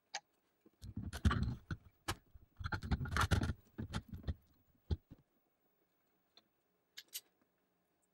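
Metal parts of a delta 3D printer being handled and fitted together at four times speed: clicking, knocking and rattling of the aluminium rail and bracket against the metal base and of loose small screws. There are two dense bursts of rattling in the first half, then a few scattered clicks.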